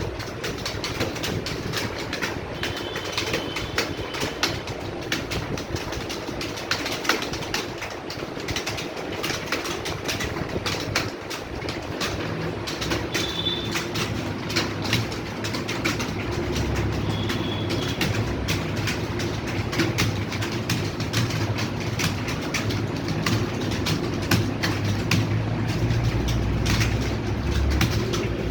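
Many computer keyboards being typed on at once during a speed-typing test: a dense, continuous clatter of key clicks, with a low hum underneath that grows about halfway through.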